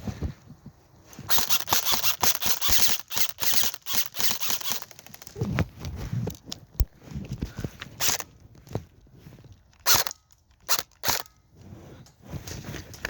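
Airsoft guns firing: a few seconds of rapid shots, then scattered single shots.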